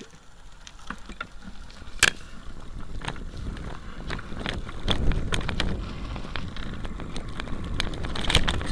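Wind buffeting the microphone of a bike-mounted camera while riding a road bike, over a rumble of tyres on rough asphalt. Frequent sharp clicks and rattles come from the bike and mount over bumps, with a loud one about two seconds in. The wind noise grows louder from about halfway through.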